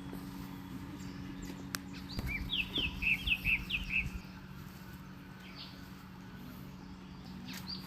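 A songbird sings a quick run of about ten short, high, downward-sliding whistled notes, starting about two seconds in and lasting about two seconds. A steady low hum runs underneath.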